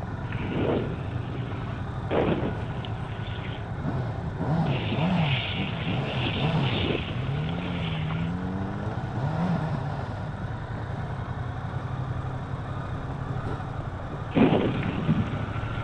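Motorcycle engine running at low speed, its note rising and falling several times with the throttle while riding slowly over a rough, potholed surface. A few sharp thumps, the loudest near the end.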